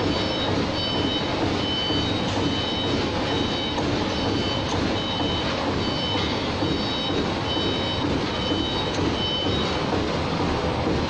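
Snack packaging line running: steel vibratory feeder trays shake puffed cereal rings along with a steady noise. Over it an electronic beeper sounds a series of evenly spaced short beeps, which stop near the end.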